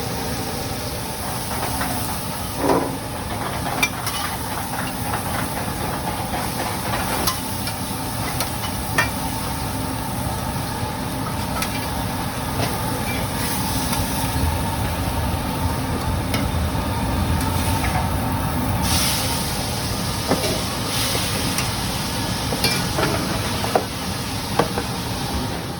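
Vegetables and seared beef sizzling with a steady hiss as they cook down on the hot surface, over the constant noise of a kitchen exhaust fan, with a few light knocks of utensils.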